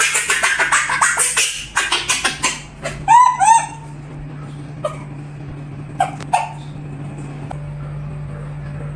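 Fast scratching and rattling for the first three seconds, then two short squeals from a baby monkey, each rising then falling, followed by a few faint clicks over a steady low hum.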